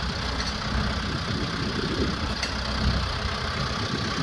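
Compact diesel tractor engine running steadily while it powers the backhoe's hydraulics, with the arm pressing down to lift the backhoe off its chassis fittings. A couple of faint clicks come near the end.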